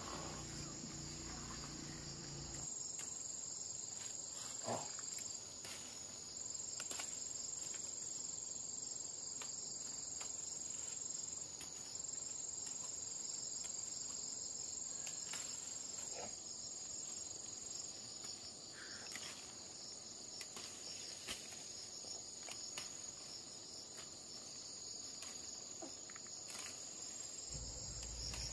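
A steady, high-pitched chorus of insects trilling in the vegetation, with a few faint clicks and rustles scattered through it.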